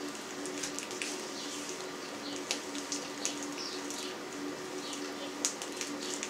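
Sausage mince being forced through a hand-cranked vertical piston sausage stuffer into an edible collagen casing: scattered soft squelches and small clicks as the filled casing slides off the nozzle, over a faint steady hum.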